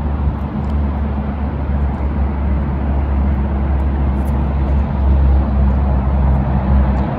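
Outboard motor of a small fishing boat running steadily, a constant low hum.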